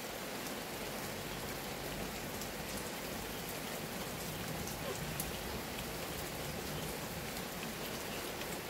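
Steady rain falling: an even hiss with a few louder drops ticking through it.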